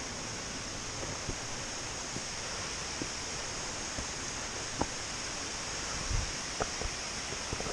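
Steady rushing of flowing creek water or a waterfall, with a few light clicks and knocks scattered through it, the most noticeable about five and six seconds in.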